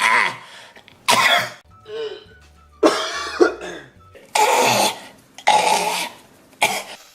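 Men coughing in a run of about seven coughs, one after another at roughly one a second.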